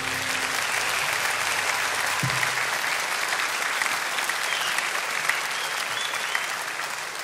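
Concert hall audience applauding at the end of a song: steady clapping that eases off slightly near the end.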